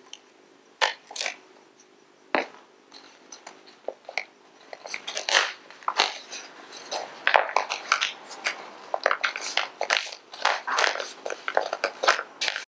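Kraft paper mailing envelope rustling and crinkling as its adhesive strip's backing is peeled off and the flap is pressed down to seal it. A few scattered crinkles at first, then a dense run of crackling rustles from about four seconds in.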